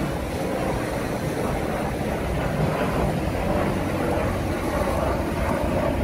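Jet airliner flying low overhead on its approach, a steady rushing jet-engine noise with a hum that grows stronger near the end.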